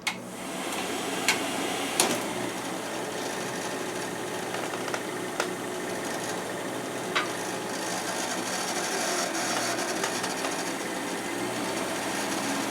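Regular 8 film projector running: a steady mechanical noise that comes up about half a second in, with a few sharp clicks over the first several seconds.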